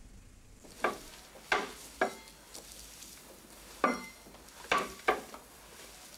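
A handful of short, sharp knocks and clacks at uneven spacing, about six in all, a couple of them with a brief faint ring, over low room noise: a child handling or rocking on a wooden toy.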